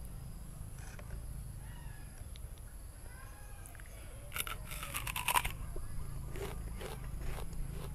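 A crisp bite into a raw wax apple about four seconds in: a quick run of crunches as the firm, juicy flesh breaks. Then slower crunching as it is chewed.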